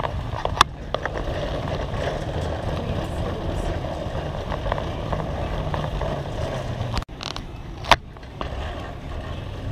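Wire shopping cart rolling along a store floor, its wheels rumbling and the loaded basket rattling, with a couple of sharp clacks.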